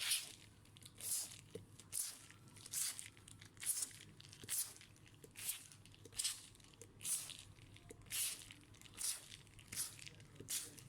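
Repeated scrubbing strokes on a laptop circuit board, a short scratchy swish about once a second, a dozen or so in a row.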